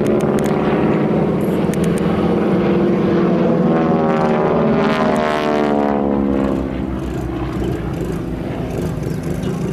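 Two North American AT-6D Texans' Pratt & Whitney R-1340 radial engines and propellers running hard overhead through an aerobatic manoeuvre. The engine notes slide up and down against each other in the middle, and the sound gets somewhat quieter about six and a half seconds in.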